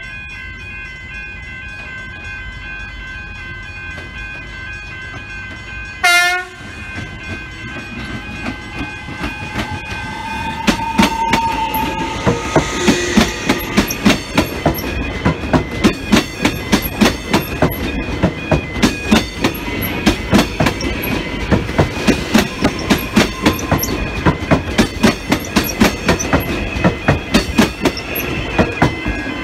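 A Metro Trains X'Trapolis electric multiple unit sounds one short horn blast, then runs past close by with a rising electric whine and a long, rhythmic clickety-clack of its wheels over the rail joints.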